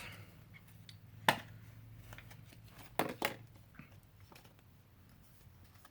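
Small packaging being handled: a few sharp clicks, the clearest about a second in and a close pair near the middle, with faint ticks and light rustling between them.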